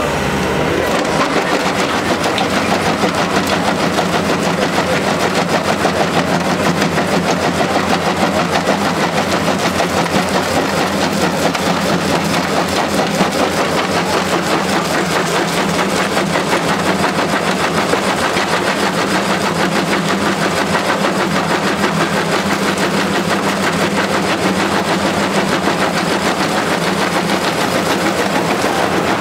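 MB-L160 crusher bucket on a Bobcat compact track loader crushing rubble: a dense, rapid rattle of stone breaking in the jaw, starting about a second in, over the loader's steady diesel engine.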